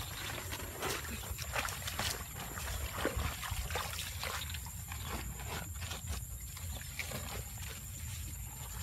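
Irregular wet rustles, snaps and squelches as water hyacinth stems and mud are handled at a muddy hole. They come every few tenths of a second at first and thin out in the last few seconds, over a low steady rumble.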